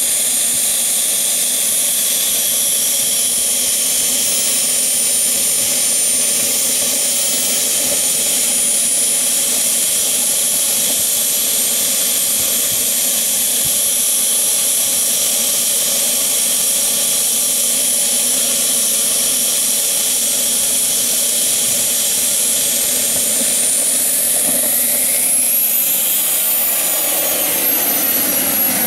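Turbine engine of a radio-controlled F-16 model jet running at idle with a steady high whine over a rushing exhaust. Near the end it spools up, the whine rising in pitch, as the jet starts to roll.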